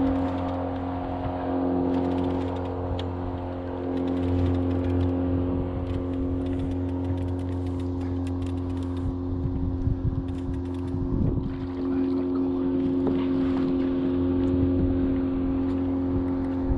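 A boat's outboard motor running at a steady low idle, with light clicks and rattles over it.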